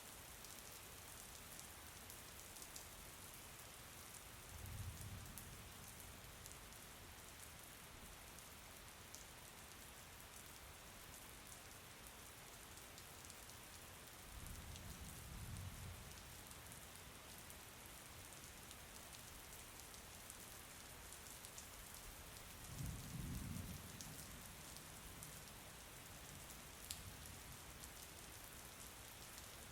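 Faint, steady rain with fine drop ticks. Three brief low rumbles come through about five, fifteen and twenty-three seconds in.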